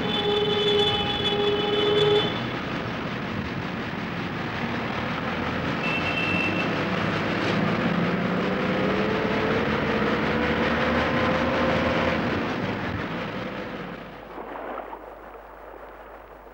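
Busy street traffic, with cars and vans running past. A car horn sounds twice in the first two seconds, and an engine rises in pitch as it speeds up. The traffic noise fades out near the end.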